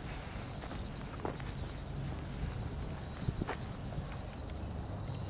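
Insects chirring outdoors: a steady, rapid, high-pitched pulsing, with a few faint clicks and a low rumble beneath.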